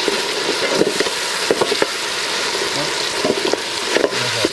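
Fried onion base for pulao sizzling in a metal pot, a little water having just been added, as a metal ladle stirs it with a few scrapes and clinks against the pot.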